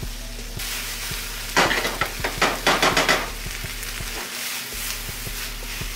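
Diced onions sizzling in a hot nonstick skillet. The hiss comes in just after the gas burner knob is turned, and a plastic slotted spatula stirs and scrapes them in a quick flurry of strokes from about a second and a half in to about three seconds.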